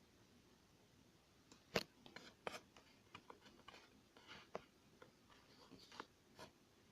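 Cat licking its fur over and over: a run of irregular, soft wet clicks from its tongue, starting about a second and a half in, with the first click the loudest.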